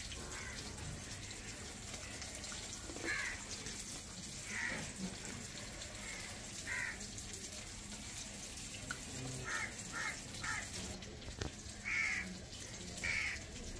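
Crows cawing: several short caws scattered through, a few in a quick run of three, over a low steady background.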